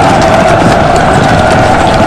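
Battle sound effect: a loud, dense, unbroken din with many galloping horses' hooves clattering through it.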